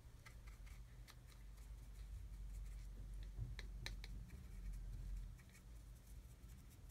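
Paintbrush bristles scratching dry metallic pigment over a small plastic model part, faint and uneven, with light clicks from the part being handled in the fingers.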